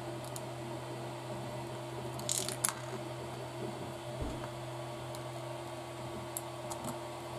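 Small kit parts being handled and fitted, with a few light clicks and a short clicking rattle about two and a half seconds in, over a steady background hum.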